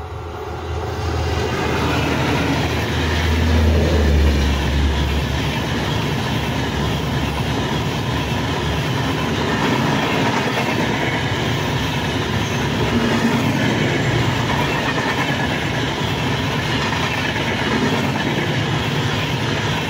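Express passenger train passing close by at speed. A deep hum from the locomotive swells and peaks about four seconds in, then fades by about six seconds. After that the passenger coaches run past with a steady rush of wheel-on-rail noise.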